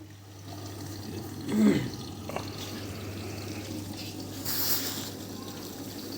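Bosch WGB256 front-loading washing machine drawing in water at the start of a wash cycle: water running into the machine over a steady low hum, with a louder hiss of water about four and a half seconds in.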